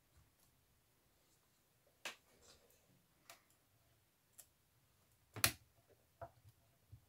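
Faint, scattered clicks and taps, about six in all, of a tape-wrapped screwdriver working the screws on a JBL 4406 monitor's front baffle; the loudest tap comes about five and a half seconds in.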